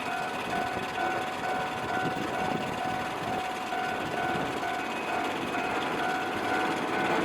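Railway level crossing warning bell ringing in even pulses about twice a second, with the rumble of an approaching train growing near the end.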